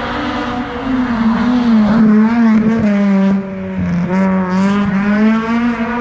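Honda Civic hillclimb car's K20 four-cylinder engine driving past at high revs, its pitch rising and falling with the throttle. It is loudest about two to three seconds in, with a brief dip just after three seconds.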